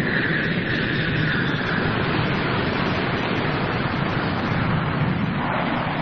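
A steady rushing-noise sound effect from a radio programme, with a whooshing tone that slowly falls in pitch over the first couple of seconds. It is played back from a cassette through a Gold Star radio-cassette player's speaker.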